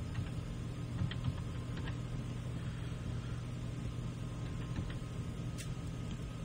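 Steady electrical hum with a thin high tone over it, and a few faint light clicks.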